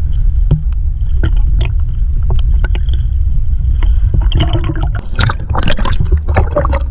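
Lake water splashing and sloshing around a swimmer and an action camera held at the surface, over a heavy low rumble of water buffeting the camera. The splashing grows busier about four seconds in as he reaches and grabs the bamboo raft.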